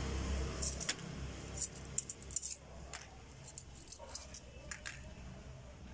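Mixer-grinder motor winding down and stopping in the first second, followed by a few light metallic clinks and rattles of small metal parts being handled.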